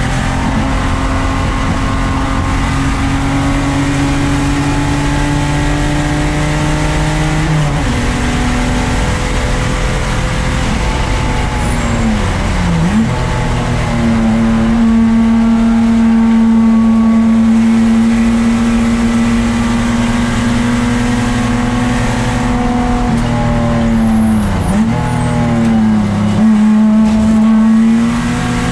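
1994 Lexus SC300's 2JZ inline-six engine running hard on track. It holds a mostly steady pitch, steps down in pitch about eight seconds in, and dips briefly and recovers twice, about 13 and 25 seconds in.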